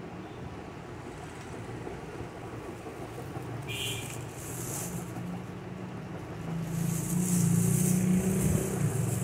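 Handling noise from the phone recording the scene. There is a brief scrape with a short squeak about four seconds in. Near the end comes louder cloth rubbing over the microphone, the loudest part. A steady low hum runs underneath.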